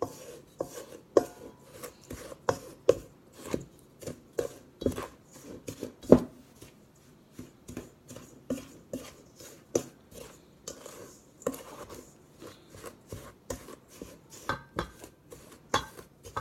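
A utensil stirring and scraping a damp powder mix of baking soda, sea salt and citric acid in a mixing bowl, with irregular clicks and knocks against the bowl a couple of times each second and one louder knock about six seconds in.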